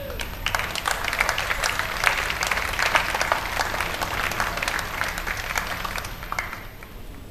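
Crowd applauding: many hands clapping together, starting about half a second in and dying away near the end.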